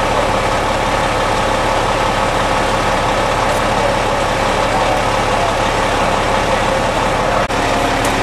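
Large emergency vehicle engine idling steadily, a continuous low mechanical hum with no change in speed.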